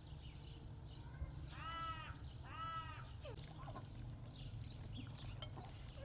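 Two short animal cries in the open air, each rising and then falling in pitch, about a second apart. A steady low rumble sits underneath.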